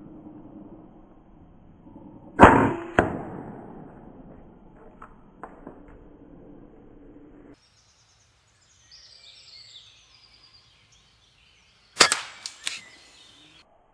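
A sharp shot from an Air Arms S410 air rifle about two and a half seconds in, followed half a second later by a second crack. Near the end there is another quick cluster of sharp metallic knocks.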